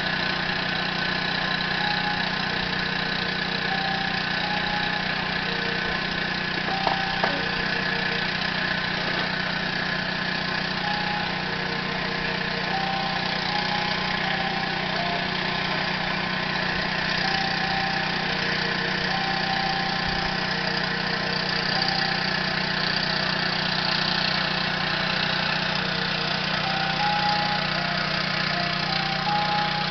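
A semi-truck's diesel engine idling steadily, an even low hum that does not change.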